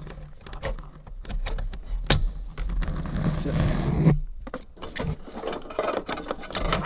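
Plastic wiring-harness connectors being handled and pushed together: a run of small clicks and rattles, with one sharp click about two seconds in.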